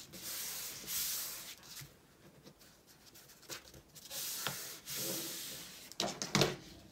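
Hands rubbing across a paper page to press it flat, heard as two longer strokes of dry paper hiss. Quicker, sharper paper-handling sounds follow near the end.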